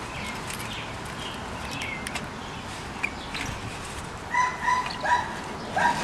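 Short high-pitched animal whines, four in quick succession near the end, with a few faint chirps before them.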